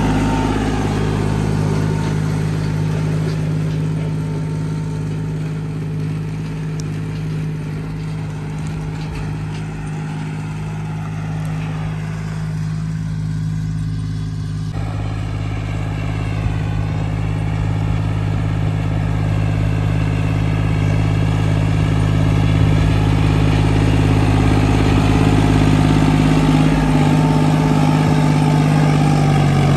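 John Deere 5105 tractor's three-cylinder diesel engine running steadily under load while pulling a disc harrow. It gets louder over the last third.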